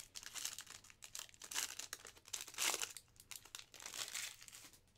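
Foil wrapper of a trading-card pack crinkling and tearing as it is ripped open by hand, in irregular crackly bursts that are loudest a little past halfway.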